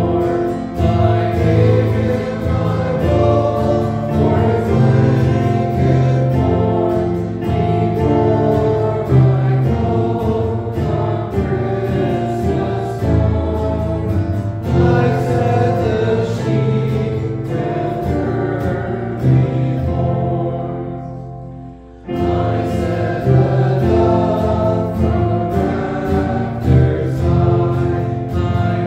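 Church congregation singing a hymn with accompaniment. The music fades into a short lull about 21 seconds in, then the singing starts up again.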